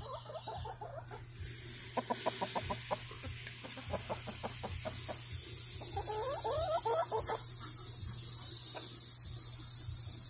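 Chickens clucking: a quick run of short clucks about two seconds in, then a string of rising calls around six seconds. A steady high insect trill starts about five seconds in.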